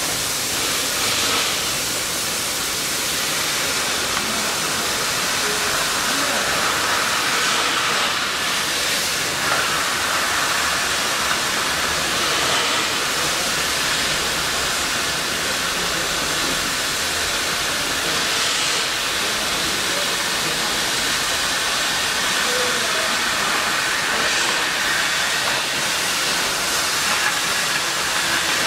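Four oxy-fuel flame cutting torches on a gantry CNC cutting machine hissing steadily as they cut 10 mm carbon steel plate.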